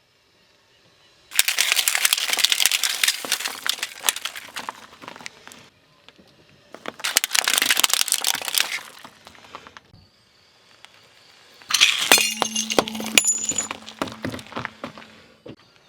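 Car tyre rolling over and crushing brittle objects: three long bursts of dense crackling and snapping with short quiet gaps between, the last with a steady low hum under it.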